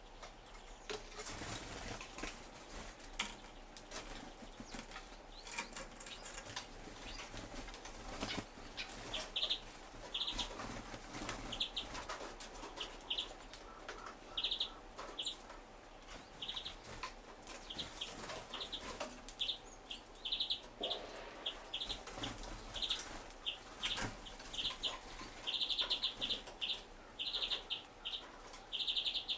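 Small birds at a wooden feeder tray: pecking taps, rustles and wing flutters, with short high chirps repeated from about nine seconds in and coming more often near the end.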